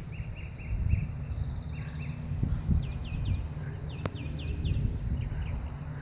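Faint steady hum of a honey bee swarm clustered on a tree branch, under a low, uneven rumble. A songbird chirps in quick runs of short notes, and there is a single sharp click about four seconds in.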